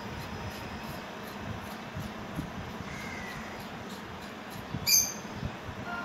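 Soft handling and scraping of a fork working gel out of an aloe vera leaf, with one short, loud bird chirp about five seconds in.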